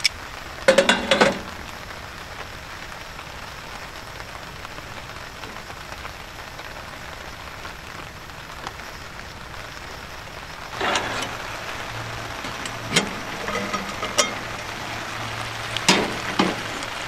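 Steady hiss of heavy rain mixed with sweet potato chunks sizzling in oil under a lid on a camp stove. A metal lid clatters onto the pan about a second in, and a few sharp clicks and knocks come in the second half.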